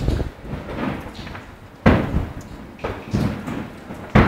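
Aerial fireworks shells bursting: sharp bangs, the loudest about two seconds in and another near the end, each trailing off in a rumbling echo, with smaller pops between.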